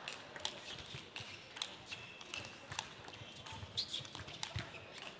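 Table tennis rally: a celluloid ball struck back and forth, sharp clicks off bats and table roughly once a second.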